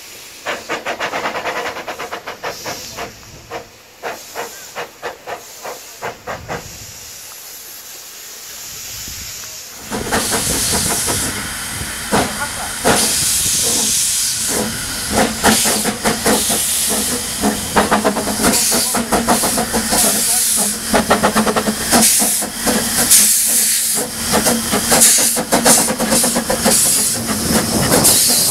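Two narrow-gauge steam locomotives, one a single Fairlie, blowing off steam: a loud hiss with quick puffs through it, much louder from about ten seconds in. Before that the hiss is fainter, with a run of short puffs about two a second.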